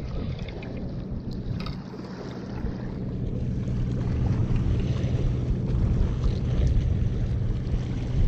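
Wind rumbling on the microphone over the wash of surf against jetty rocks, a steady low rumble that grows a little louder partway through.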